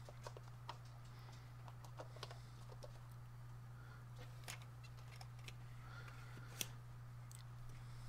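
Faint, scattered clicks and scrapes of a plastic fermentation lid being screwed onto a glass mason jar, over a steady low hum.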